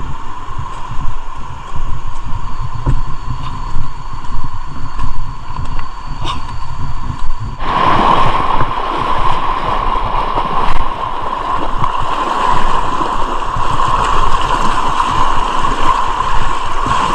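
Steady rushing river water with wind rumble on the microphone. About seven and a half seconds in, the rush turns abruptly louder and brighter.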